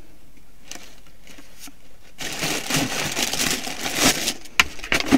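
Crinkling and rustling of wrapping being handled, starting about two seconds in and running as a dense crackle, with a few sharp clicks near the end.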